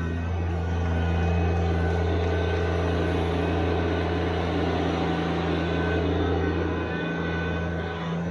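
Subcompact tractor engine running at a steady speed while working.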